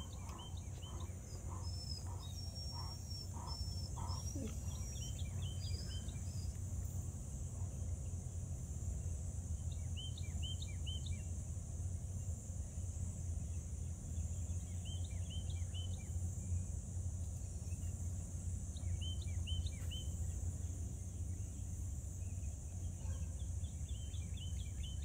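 Steady high drone of insects such as crickets or cicadas, with a bird giving short falling chirps in groups of three or four every few seconds. A low steady hum lies underneath.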